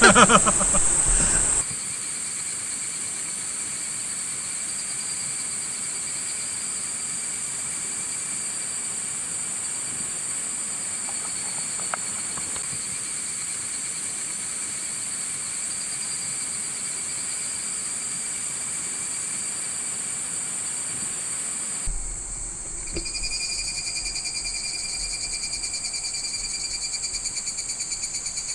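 Insects trilling in a steady chorus of several high, even tones. About 22 seconds in the chorus changes abruptly, turning slightly louder with a fast pulsing.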